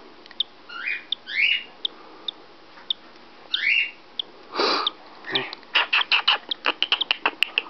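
Newly hatched cockatiel chick peeping: short high peeps mixed with a few rising cheeps, followed near the end by a quick run of sharp clicks.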